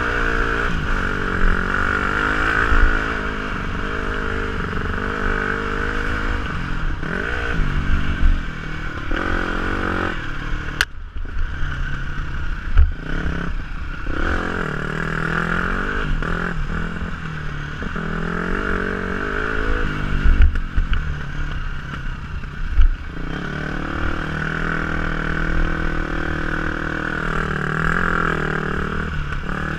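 KTM 250 SX-F's single-cylinder four-stroke engine revving up and down as the dirt bike is ridden along a trail. The engine briefly drops off about eleven seconds in. Knocks and clatter come from the bike over bumps.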